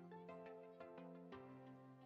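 Faint background music: a melody of separate pitched notes, changing about every half second.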